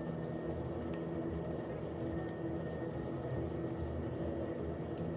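A steady low mechanical hum with a faint high tone held above it, unchanging throughout, and a few faint light ticks.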